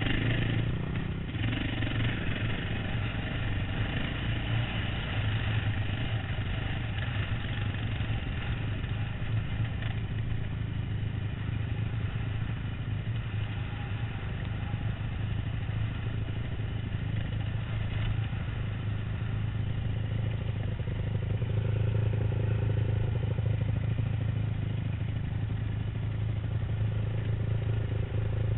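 Dirt bike engine running steadily as it is ridden along a rough trail, heard close up from the rider's helmet, growing somewhat louder about two-thirds of the way through.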